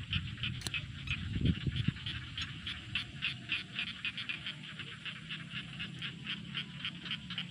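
A small animal calling in a steady, rapid train of short rasping pulses, about five a second, with a low thump about a second and a half in.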